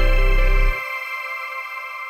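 Background music of held tones; the bass drops out under a second in and the higher tones slowly fade.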